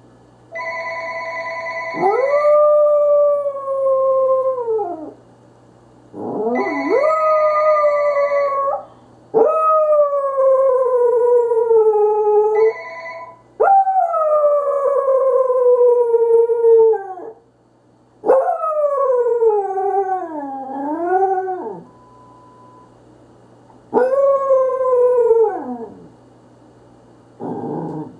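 A corgi howling along with a ringing telephone: six long howls, each starting high and sliding down in pitch, one wavering up and down. The phone's steady electronic ring sounds at the start and twice more, overlapping the first howls.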